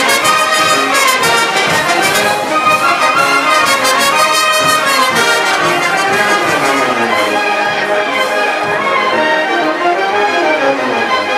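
A live village brass band playing dance music, trumpets and trombones carrying the melody over low brass and a steady bass-drum beat.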